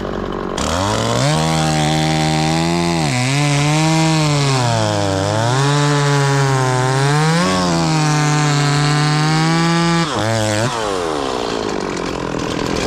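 Two-stroke chainsaw running at high revs and cutting wood, its pitch sagging and climbing again as the chain bites and frees. It drops off about ten and a half seconds in.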